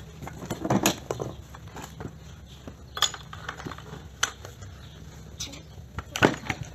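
Metal clinks and clicks of an angle grinder's clamp nut and burst cutting disc being worked loose by hand from the spindle, with the grinder not running. A handful of separate clicks spread over the few seconds, the loudest near the end.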